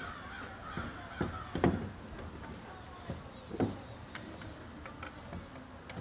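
Birds calling outdoors, with a few short knocks, the loudest about a second and a half in and again past three and a half seconds.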